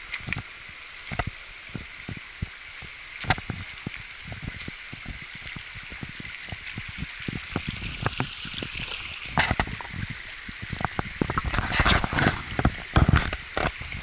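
Shallow stream running over rocks, with irregular footsteps on loose stones and gravel; the steps grow louder and come closer together in the last few seconds.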